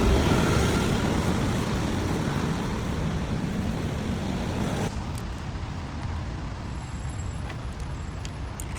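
Steady rumbling vehicle noise that drops abruptly to a quieter level about five seconds in, with a few faint clicks after the drop.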